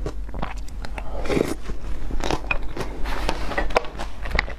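A person chewing a mouthful of yogurt with granola and fruit close to the microphone: an irregular run of small crunches and wet mouth clicks, over a steady low hum.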